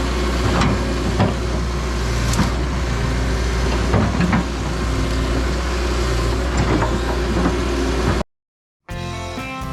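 Heavy equipment engine running steadily, with scattered knocks and clatter as wisteria bundles are loaded into a dump truck. The sound cuts off abruptly about eight seconds in, and background music with plucked guitar starts about a second later.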